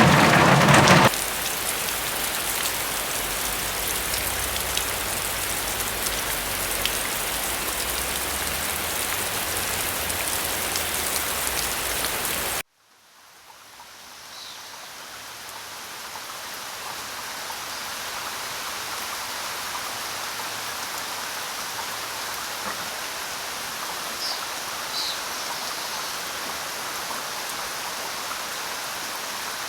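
Steady rain. A louder burst ends about a second in; the rain cuts out abruptly near the middle, then fades back in as a softer, lighter rain with a few faint high chirps.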